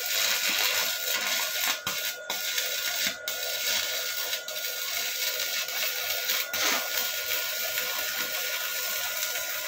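Stick (arc) welding with an Uchiha 450-watt low-wattage electric welder: the electrode's arc crackles and hisses on steel tube, holding a steady arc with a few brief breaks about two to three seconds in.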